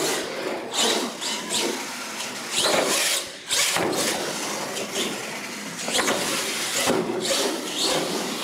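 R/C monster truck driving hard on a concrete floor: its motor and drivetrain rise and fall in surges with the throttle, with tyres scrubbing and a few sharp knocks as it hits and lands off ramps.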